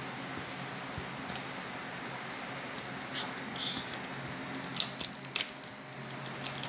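Wrapper of a surprise egg being peeled and torn off by hand: scattered short crinkles, busiest about two-thirds of the way through, over a faint steady hum.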